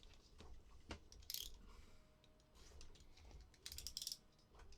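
Faint clicks and two brief scratchy rustles as small objects are handled on a desk.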